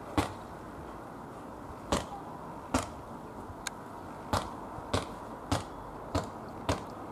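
A ball bounced repeatedly on hard ground, about nine sharp strikes, coming roughly every half second to second in the second half, over a steady low rumble.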